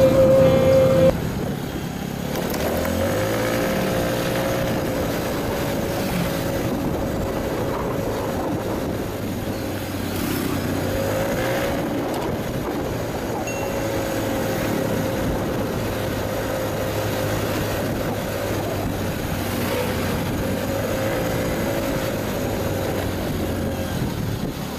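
Road vehicle's engine running while driving, its pitch rising and falling a few times with speed. Background music stops about a second in.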